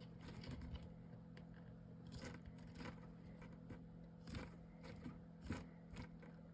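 Faint handling of paper and chipboard craft pieces: a few light rustles and taps, over a steady low hum.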